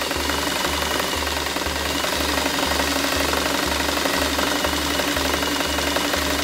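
White Model 642 domestic sewing machine running steadily, sewing a scallop decorative stitch at stitch length 1, with a fast even chatter of needle strokes.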